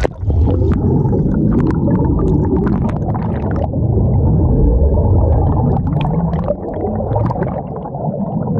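Underwater churning of air bubbles rising from bubbler holes in a wave-park river, heard through a submerged camera: a steady, muffled low rushing with scattered small pops and crackles.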